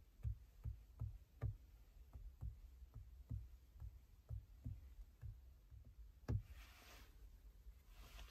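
Faint fingertip taps on a Volkswagen infotainment touchscreen's on-screen keyboard, about two taps a second, with one louder tap a little after six seconds. Two short hisses follow near the end.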